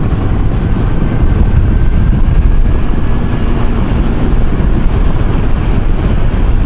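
Riding noise from a 2014 Kawasaki Versys 1000 motorcycle at road speed, heard through a helmet-mounted microphone: a loud, steady low rush of wind and engine.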